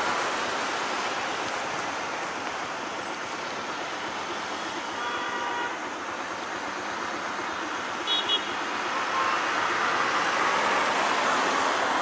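Road traffic passing: three-wheelers, cars and a van driving by. A horn sounds faintly about five seconds in, then two short, higher beeps about eight seconds in.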